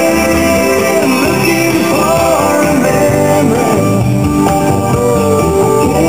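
Recorded country-rock song with singing and guitar over a steady band backing, played loud over a hall's loudspeakers.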